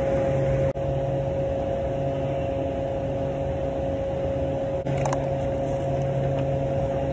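Steady machine hum with a constant mid-pitched whine and a low drone underneath. It briefly drops out under a second in and clicks about five seconds in.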